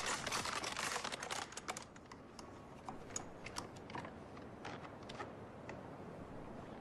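Several soldiers working the bolts of bolt-action rifles: many irregular metallic clicks and rattles, thickest in the first two seconds and then thinning out, over a steady hiss.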